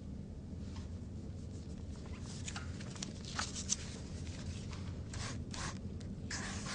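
Pen scratching on notebook paper in short strokes, in a few brief groups, over a low steady room hum.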